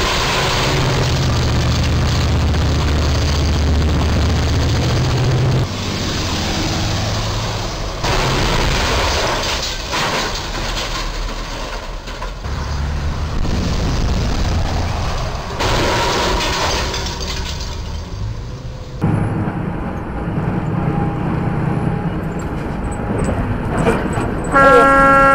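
Road traffic with a box truck's engine running as it nears the underpass, the engine hum strongest in the first few seconds. Near the end a truck's air horn sounds a loud, steady chord.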